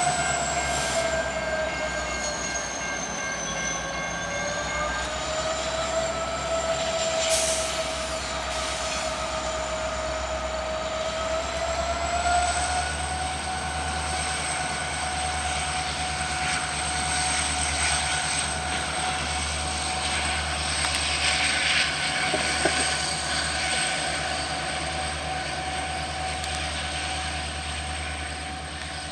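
Slow-moving freight train led by an EMD diesel locomotive, its wheels squealing steadily in a high pitch that wavers slightly, over the low hum of the engine, with a few clanks. A grade-crossing bell rings rapidly for the first five seconds, then stops.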